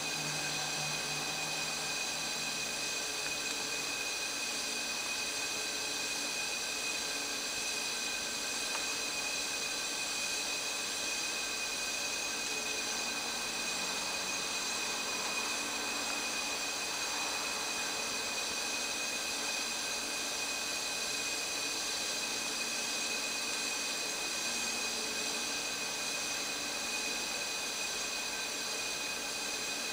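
Steady background hiss with several fixed high whining tones, unchanging throughout, with no distinct events.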